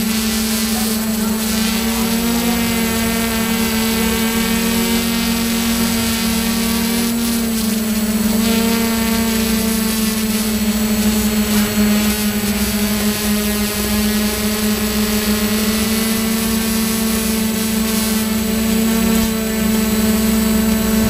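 Quadcopter drone's propellers and motors humming steadily, heard from the camera on the drone itself: one strong held pitch with a ladder of overtones, wavering slightly as the drone holds and shifts position.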